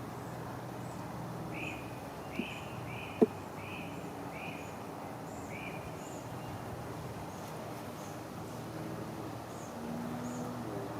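A songbird repeating a short chirping note about six times in the first half, with fainter high bird notes throughout, over a steady low hum typical of honeybees flying around an opened hive. A single sharp click about three seconds in.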